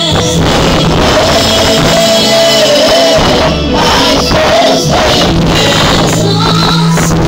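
Gospel song performed live: a woman singing lead through a microphone over a band with electric bass guitar, played loud through the church PA.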